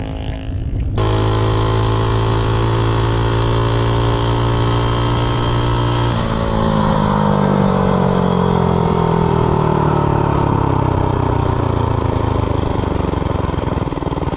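Minibike's Predator 212 single-cylinder four-stroke engine running at steady high revs at top speed. About six seconds in the throttle comes off and the engine note falls steadily as the bike slows down.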